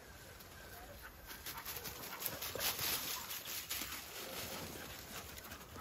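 A dog panting close by, with scuffling and rustling, loudest from about one and a half to four seconds in.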